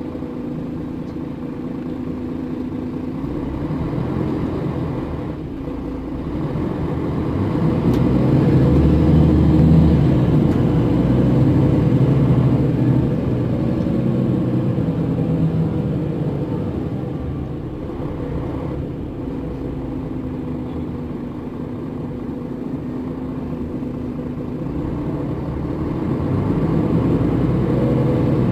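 Mercedes OM457 hLA six-cylinder diesel of a Setra S417 UL intercity bus heard from inside the passenger cabin, running steadily as the bus drives. It grows louder about eight seconds in, eases off a little past halfway and builds again near the end, as the bus pulls away and slows with the traffic.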